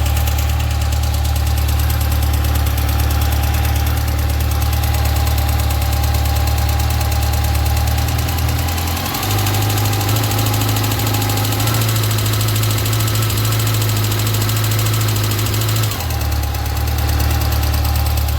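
Yamaha FJR1300 inline-four motorcycle engine running steadily at idle. Its pitch steps up slightly about nine seconds in, holds there, and drops back to idle about sixteen seconds in.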